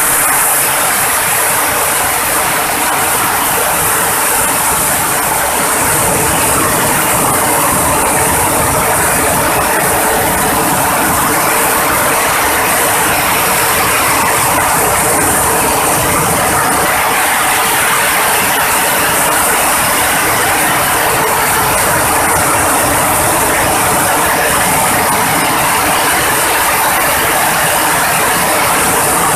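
Dry coffee cherry hulling machine running steadily while it hulls dried cherries: a loud, dense mechanical rattle with a steady hum underneath.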